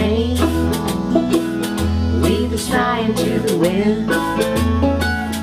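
Old-time country band playing acoustically: strummed acoustic guitar and picked banjo over a bass line of held low notes, with a melody line on top.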